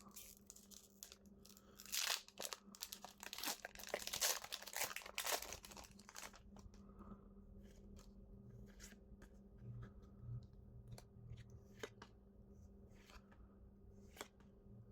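Pokémon TCG booster pack wrapper being torn open and crinkled, a burst of tearing and crackling from about two to six seconds in, followed by faint scattered clicks and rustles.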